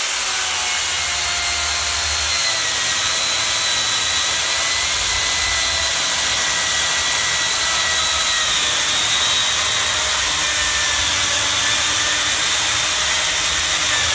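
Makita UC4051A electric chainsaw, with a 14.5-amp motor and 16-inch bar, ripping lengthwise with the grain through a log, running steadily under load.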